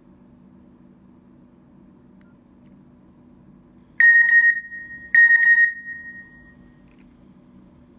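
Nokia N82 mobile phone's loudspeaker playing an electronic ring tone: two bright ringing chimes about a second apart, each starting with a quick stutter and then fading out. A faint steady hum runs underneath.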